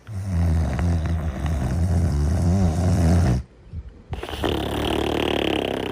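A person snoring. The first snore is long, low and rattling and lasts about three and a half seconds. After a short pause comes a second, breathier snore with a hiss.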